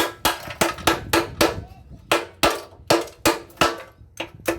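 Rapid hammer blows on metal, about three a second with a brief pause near the middle, each strike leaving a short metallic ring.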